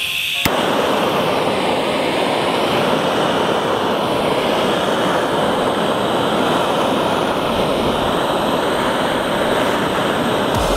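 Handheld gas blow torch lit with a click about half a second in, then its flame jet giving a steady hiss.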